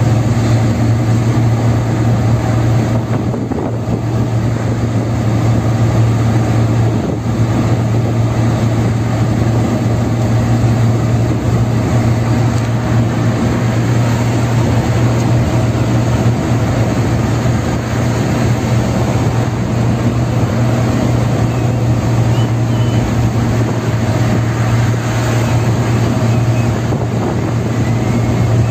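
Steady low drone of a vehicle cruising on a highway, a constant engine hum mixed with tyre and road noise.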